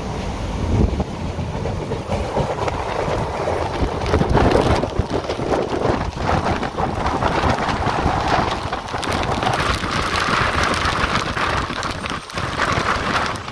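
Passenger train running, heard from inside a coach: a steady rumble and rattle of wheels on rails with irregular clatter. The rushing noise grows stronger in the last few seconds.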